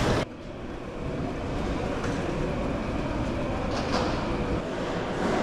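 Music cuts off just after the start, leaving the steady low rumble and hiss of a railway station concourse, with a few faint clicks.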